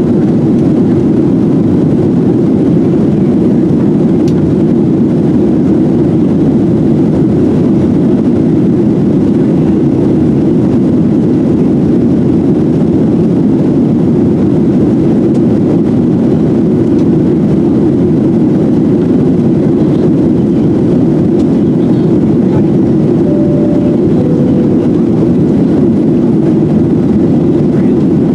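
Steady jet engine and airflow noise of a Boeing 737-700 heard inside the passenger cabin, a constant low rumble with no change in pitch or level. A faint two-note falling tone sounds near the end.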